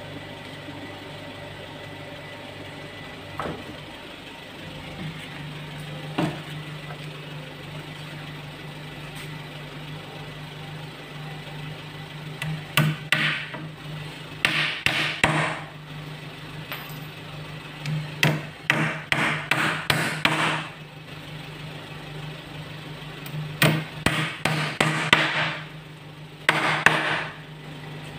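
Hammer nailing rough wooden planks together to build a shipping pallet: a couple of single knocks, then several runs of quick blows with short pauses between them, over a steady low hum.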